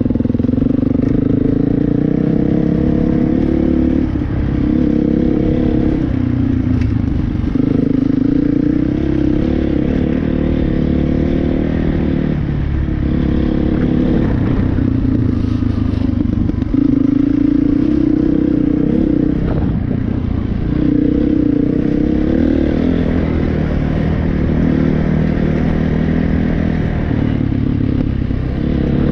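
Dirt bike engine heard from the rider's own bike, running under load on a dirt trail, its pitch rising and dropping back every few seconds as the throttle is worked.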